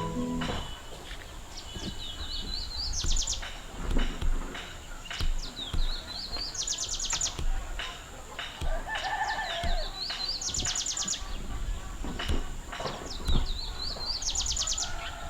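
A small songbird singing the same short phrase four times, about every four seconds: a few quick rising chirps followed by a fast, high rattling trill.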